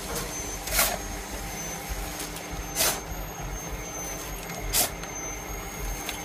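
Green electric air compressor running steadily beside a PX500 pneumatic concrete pump, with a short rush of scraping noise about every two seconds as shovelfuls of sand-and-cement mix are tipped into the pump's hopper.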